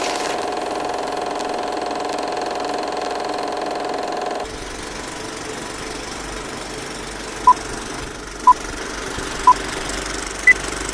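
Film projector running with a steady mechanical clatter, which changes about four and a half seconds in. Near the end come countdown beeps a second apart: three at one pitch, then a fourth higher.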